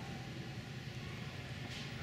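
Steady background hum of an ice hockey arena, with a short scrape near the end.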